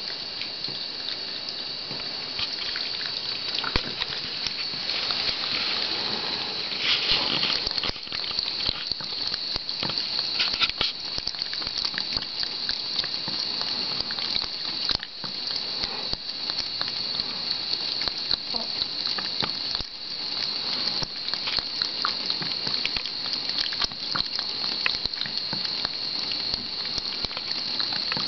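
Bathroom faucet running a thin stream of water into the sink, a steady hiss with irregular small splashes and clicks as a cat drinks from the stream.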